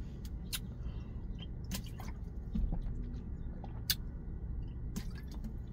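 A person drinking water from a plastic bottle: a few sharp crackles of the thin plastic and mouth and swallowing sounds, over a low steady hum.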